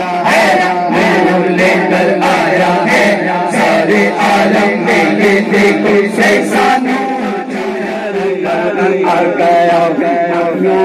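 A group of voices chanting a naat, a devotional song in praise of the Prophet, in unison to a steady beat.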